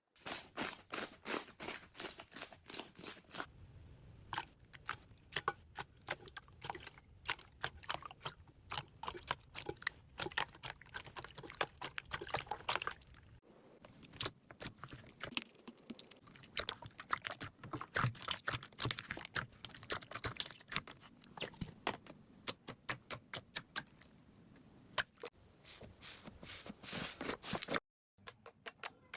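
Slime being squeezed and poked by hand, giving off rapid, irregular crackly clicks and pops. The clicks come in clusters, several a second, with brief breaks about halfway through and near the end.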